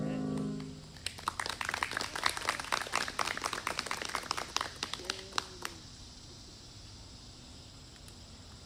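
The last note of a song dies away, then a few people clap for about five seconds, the claps thinning out before stopping.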